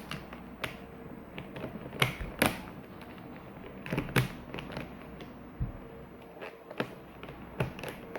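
Plastic pieces of a Puppet Cube puzzle clicking and knocking irregularly as they are handled and pressed into place, with the sharpest pair of clicks about two seconds in.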